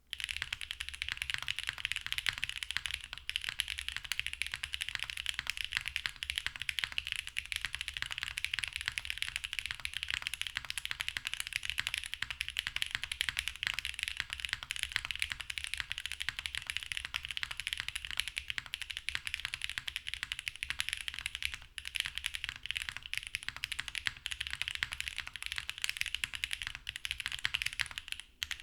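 Fast, continuous typing on a Wilba Tech Salvation mechanical keyboard with stock Kailh BCP switches in an aluminium plate, leaf-spring tray mount and GMK Dracula keycaps: a dense run of clacky keystrokes, like long-pole Cherry switches, with two brief pauses, one about three-quarters of the way through and one just before the end.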